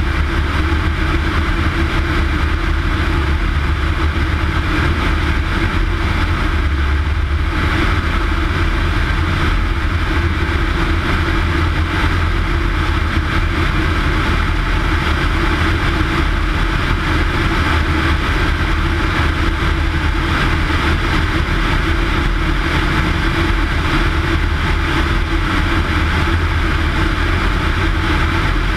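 Single-engine high-wing light airplane in flight: its piston engine and propeller drone steadily under heavy wind buffeting on a camera mounted outside the aircraft. The rushing noise grows a little stronger about seven seconds in.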